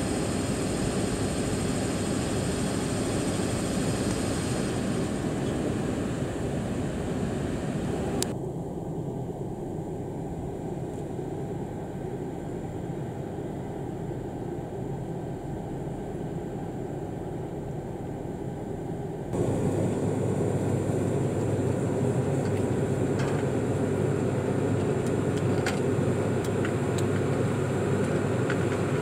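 ED75 electric locomotive standing with its cooling blowers running, a steady drone. The sound drops abruptly about eight seconds in and comes back louder at about nineteen seconds, with a few faint ticks near the end.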